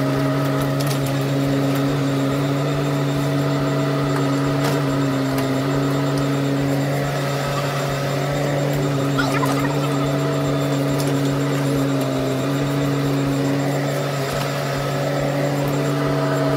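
Bobcat E10 mini excavator's diesel engine running steadily while the hydraulic arm digs. Its pitch dips briefly a few times as the hydraulics take load, with a few faint knocks from the bucket.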